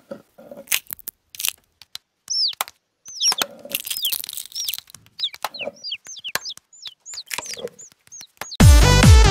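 Eggshells cracking and newly hatched chicks cheeping: sharp cracks and taps, then a run of short, high, falling peeps from about two seconds in. Electronic dance music cuts back in near the end.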